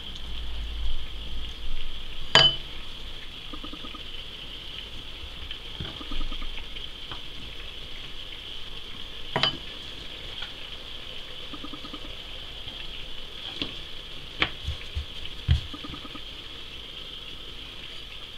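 A steady hiss, with a few sharp clicks and soft taps as dough rounds are brushed with oil from a bowl and stacked on a floured table.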